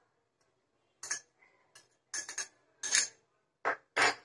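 Metal spoon clinking against a glass bowl and a steel mixer-grinder jar as cocoa powder is spooned in: a string of short, sharp clinks, louder toward the end.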